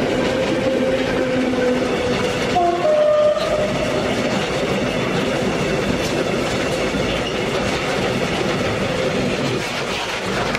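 Freight train's loaded container wagons rolling past at speed close by, a steady loud rumble of wheels on the rails. A brief tone sounds about three seconds in.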